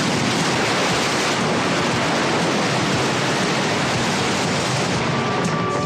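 Cartoon sound effect: a loud, steady rushing hiss for the blazing magic calabash seed, like a blast of fire. A faint high tone comes in near the end.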